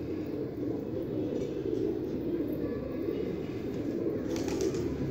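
Domestic fancy pigeons cooing steadily, an unbroken low rolling coo from several birds. A brief rustling noise breaks in near the end.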